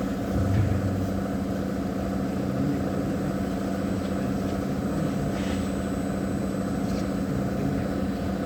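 Insulated-glass production machine running in automatic mode, giving off a steady mechanical hum with one strong low tone.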